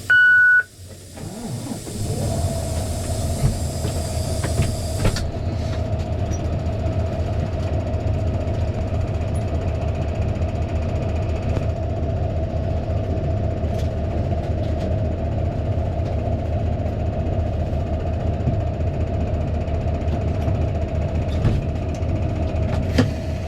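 Short high electronic beep, then the Fendt 936 Vario tractor's six-cylinder diesel engine comes up to speed about two seconds in and runs steadily, a constant whine over its low drone.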